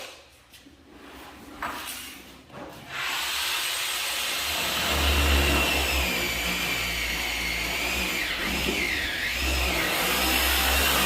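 A few knocks, then about three seconds in an electric power tool starts and runs steadily with a high whine; near the end the whine briefly drops in pitch and comes back up.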